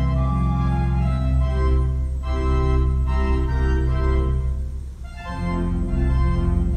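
1914 W.W. Kimball player organ playing a perforated paper roll: sustained chords over a steady deep bass. The music breaks off briefly about five seconds in, then the chords resume.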